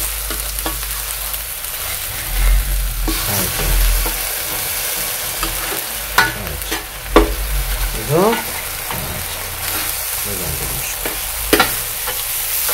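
Pulled pork and sliced brisket sizzling in oil on a flat-top griddle, with the metal blades of two spatulas scraping and clacking on the plate as the meat is tossed, several sharp clanks standing out. The pork is being fried until it turns crisp.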